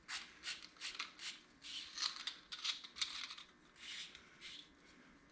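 Small, irregular clicks and scrapes, several a second, as a drill bit is fitted into a Drill Doctor's adjustable collet and the collet is turned to tighten it.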